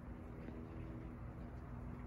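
Quiet room tone: a low rumble with a faint steady hum and no distinct event.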